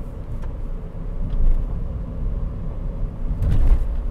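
Toyota Yaris 1.33 Dual VVT-i's four-cylinder petrol engine and road noise heard from inside the cabin while driving: a steady low rumble with no rattles. It swells briefly about three and a half seconds in.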